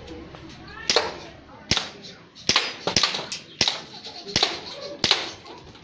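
Glock 17 gas blowback airsoft pistol firing about seven single shots at an uneven pace, a little under a second apart.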